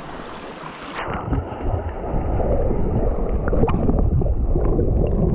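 Shallow stream water running, then about a second in the microphone goes under the water: a muffled underwater rumble and gurgle with scattered small clicks.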